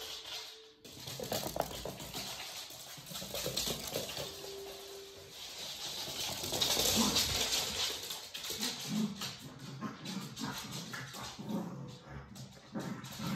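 Two Pembroke Welsh corgis running and play-fighting on a laminate floor: quick clicks and scrabbling of claws, with short dog sounds in the second half as they wrestle.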